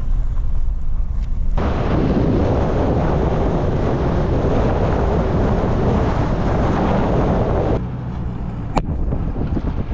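A vehicle driving, with a steady low engine and road rumble. A loud rushing noise cuts in about a second and a half in and cuts out abruptly about six seconds later, and a single sharp click follows near the end.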